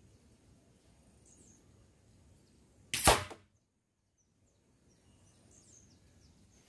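A single sharp shot about three seconds in: a pellet fired from a Gamo G-Magnum 1250 air rifle at the bottle-and-can targets. Faint bird chirps sound before and after it.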